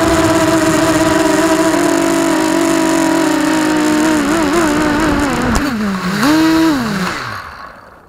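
FPV quadcopter's electric motors and propellers whining steadily, the pitch wavering with throttle changes, then dropping, rising briefly once more and winding down to a stop near the end as the drone comes to rest on the ground.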